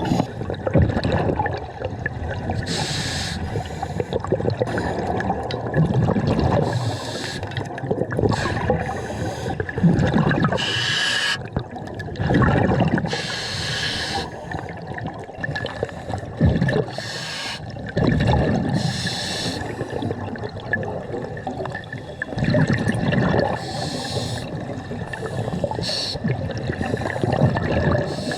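Scuba diver breathing through a regulator underwater: a hissing inhale every few seconds, then gurgling, bubbling exhales.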